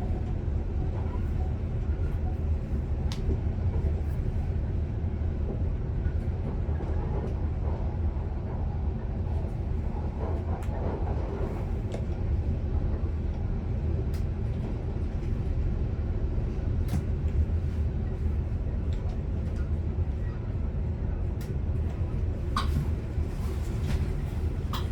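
Commuter electric train running along the track, heard from the driver's cab: a steady low rumble with a few scattered sharp clicks.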